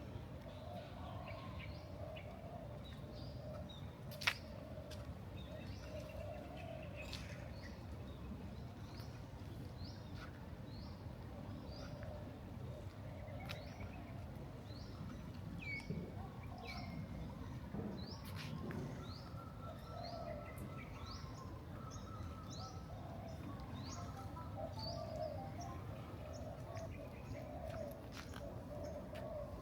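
Birds chirping in morning ambience, a stream of short, sharp calls sweeping quickly downward, over a steady low background rumble. A single sharp click comes about four seconds in.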